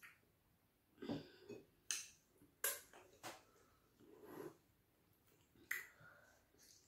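Close-up eating sounds from fufu and sticky ogbono soup eaten by hand: a few sharp, wet mouth smacks and softer chewing sounds, spread out with quiet between them.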